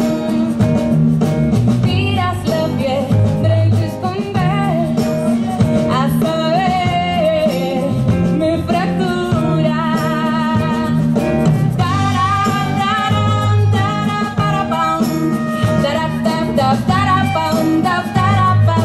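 Live band music: a woman singing with vibrato, accompanied by acoustic guitar, drums and sustained low bass notes.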